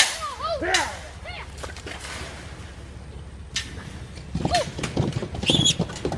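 Young wild hogs squealing in short rising-and-falling calls, with a high squeal near the end as they run into the trailer. Two sharp bangs cut in, one at the start and another about three and a half seconds in.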